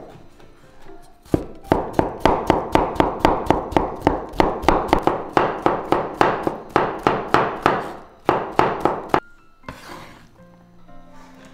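Kitchen knife chopping on a wooden cutting board: an even run of about four strokes a second, with a brief break about eight seconds in.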